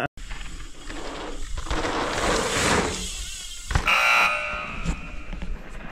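YT Decoy electric mountain bike ridden fast down a dirt trail: tyre and wind noise swelling and fading, a couple of knocks from the bike, and a brief high buzz about four seconds in.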